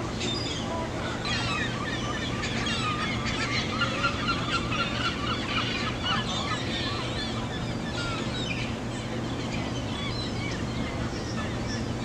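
A flock of gulls calling: many short, overlapping squawks and cries, busiest in the first half and thinning out later, over a steady low background rumble.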